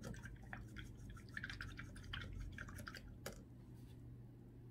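Paintbrush dipped and stirred in a small container of water: faint, quick little taps and drips, dying away about three seconds in.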